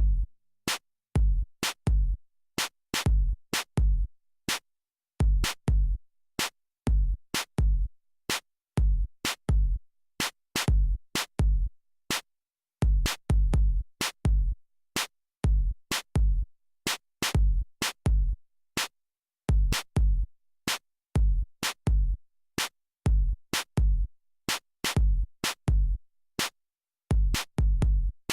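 Drum-machine music: a repeating electronic beat of deep kick-drum thuds and sharp clicking hits, with no melody.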